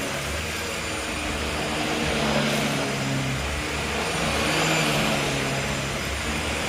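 Hoover H Upright 500 Plus upright vacuum cleaner running steadily, its motor giving an even rushing noise with a low hum that shifts slightly in pitch.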